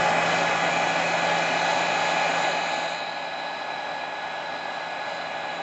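Electric heat gun running steadily, blowing hot air to shrink heat-shrink tubing over a soldered wire connector. It gets quieter about three seconds in.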